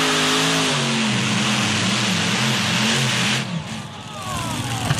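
Competition pulling tractor's engine running flat out under load, its pitch wavering. About three and a half seconds in the engine note drops away sharply, leaving falling whines as it winds down.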